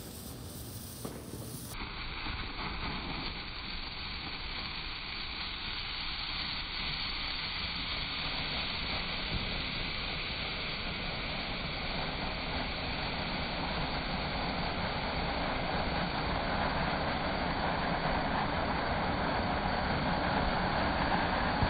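A firework fuse sputtering quietly, then from about two seconds in a ground fountain firework spraying sparks with a steady hiss that grows gradually louder.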